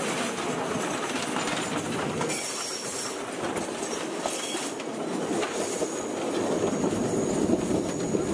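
Open railway wagon rolling along the track: a steady rattle and clatter of wheels on the rails, with a faint thin high whine in the last couple of seconds.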